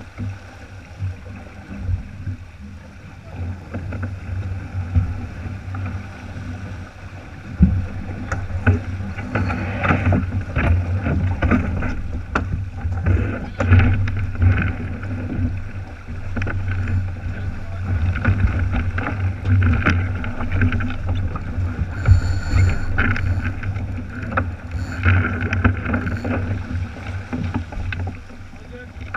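Wind buffeting the camera microphone with a heavy low rumble, over water rushing along the hull of a sailboat under way, with scattered knocks.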